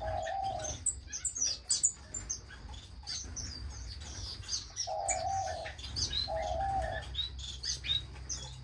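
Many small cage finches chirping and tweeting at once in quick, overlapping high calls. A lower, flat, drawn-out note of under a second sounds at the start and twice more past halfway.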